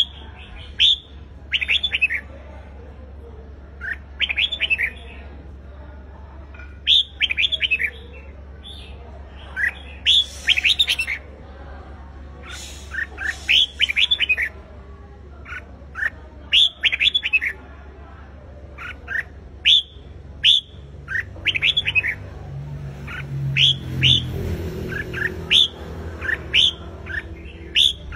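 Red-whiskered bulbul singing its loud competition song: short phrases of quick whistled notes, repeated every second or two. A low hum comes in briefly in the last few seconds.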